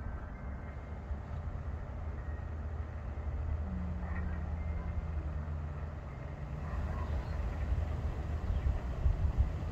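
Low, steady outdoor background rumble, with a faint hum that dips slightly in pitch about four seconds in and fades, and a few faint short chirps.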